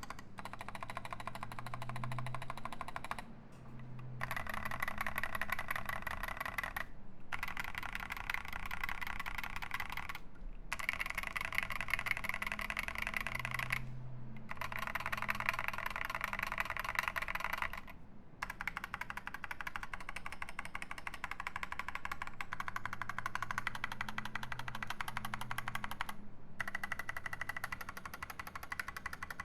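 Fast typing on a UTD 356 mini mechanical keyboard with stock Boba U4T 62g tactile switches, an aluminium plate and SA keycaps: a dense run of keystrokes broken by brief pauses every few seconds.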